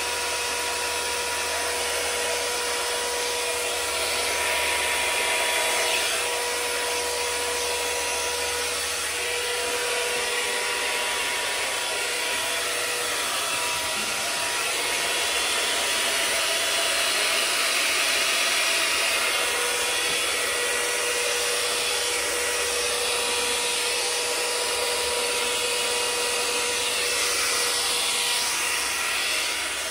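Handheld hairdryer running steadily, its air stream blowing wet acrylic paint across a canvas. A steady motor whine sits over the rush of air, fading for a few seconds midway and then returning.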